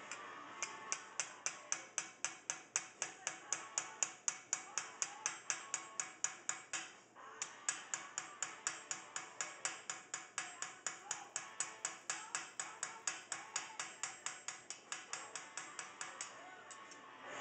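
Small hammer tapping a sheet-metal acanthus leaf held on a stake in a vise: quick, even light blows, about four a second, with a brief pause about seven seconds in.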